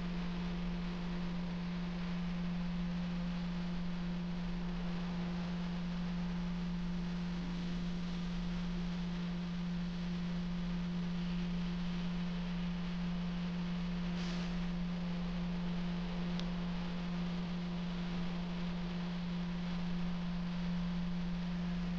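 A steady low hum with a fainter tone an octave above it, unchanging in pitch; a brief soft hiss about two-thirds of the way in.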